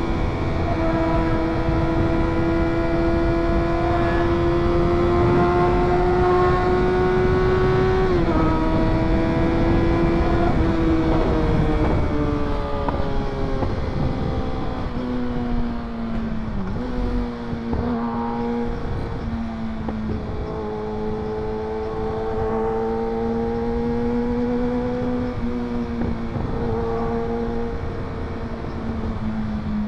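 Motorcycle engine running while riding, over a steady rush of noise. Its pitch climbs slowly for the first eight seconds and drops sharply at about eight seconds. It then eases lower in several steps, with brief small rises, falling further near the end.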